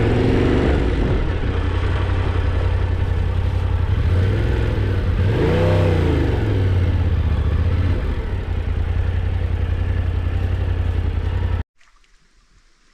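Yamaha Tenere 700's parallel-twin engine running under way, with a steady low drone and a brief rise and fall in engine pitch about six seconds in. The sound cuts off suddenly near the end, leaving only a faint background.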